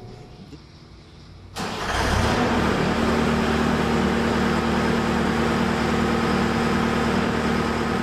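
Skid-steer loader's diesel engine coming up suddenly about one and a half seconds in, then running steadily with a constant hum.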